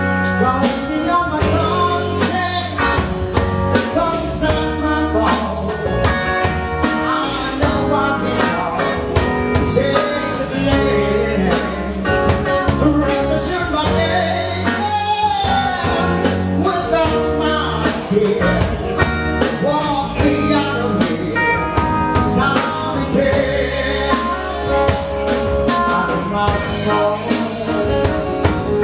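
Live band playing: electric guitars, keyboard and drum kit, with a steady drum beat.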